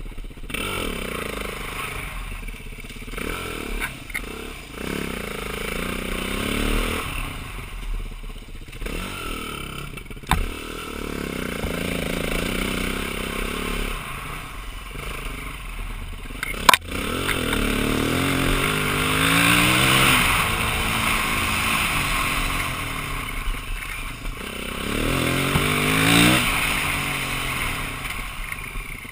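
2009 BMW G450X single-cylinder four-stroke engine riding off-road, its revs rising and falling over and over as the throttle opens and closes. Two sharp knocks come partway through, about a third of the way in and again past the middle.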